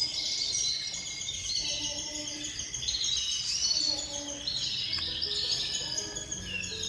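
Small cage birds, goldfinches among them, twittering and chirping continuously in dense, overlapping high-pitched calls.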